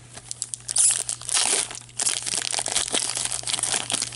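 Trading-card pack wrapper being torn open and crinkled by hand, a busy crackling with tearing in bursts.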